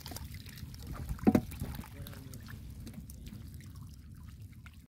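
Small freshly netted fish and shrimp flapping and pattering on a wet net, over a steady low rumble, with one louder knock a little over a second in.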